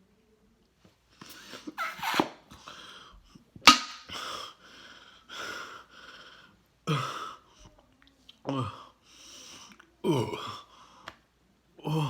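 A person gasping and panting in short, sharp breaths about once a second, a few of them voiced, after gulping down carbonated Diet Coke too quickly.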